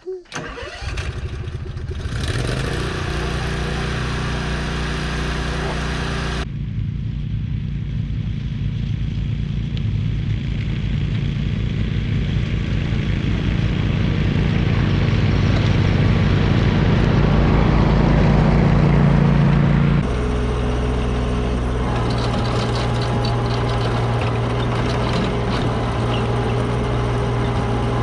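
A vehicle engine running steadily while driving, getting louder in the middle, with abrupt changes in its sound about six seconds in and again about twenty seconds in.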